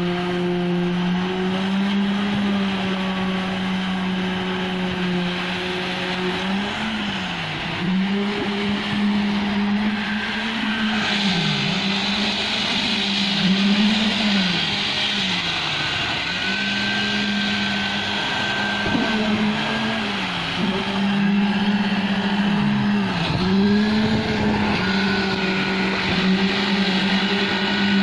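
Diesel engine of a concrete pump truck running steadily, its note dipping briefly and recovering every second or two as it takes load. A rougher hiss joins it about ten seconds in.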